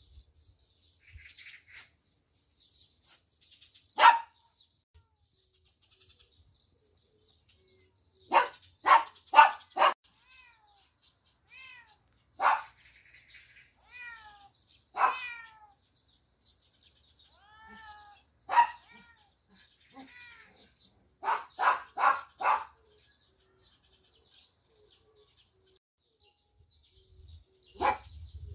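Animal calls: short, loud cries in clusters of up to four, with fainter rising-and-falling calls between them.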